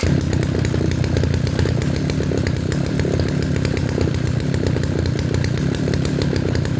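Kioritz RMB343D brush cutter's 34 cc two-stroke engine running, coming in abruptly right at the start and then holding a steady, even speed.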